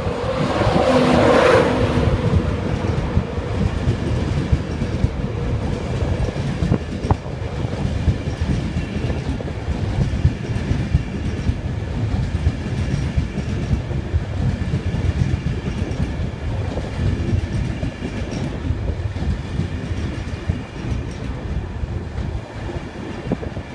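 Class 91 electric locomotive passing close, loudest in the first two seconds, followed by its Mark 4 coaches rolling by with a steady low rumble and wheels clattering over the rail joints.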